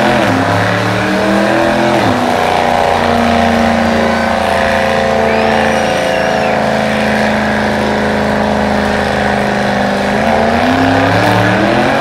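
Ford V8 engine held at high revs in a burnout, the spinning rear tires adding a hiss beneath it. The revs climb over the first couple of seconds, hold steady for several seconds, then rise and dip again near the end.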